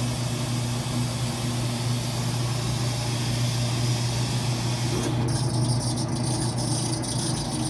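Laundromat machines running: a steady, loud, low machine hum. A higher hiss joins about five seconds in.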